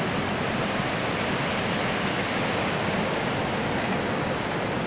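Fast mountain river rushing over boulders in white-water rapids, a steady, even rush of water.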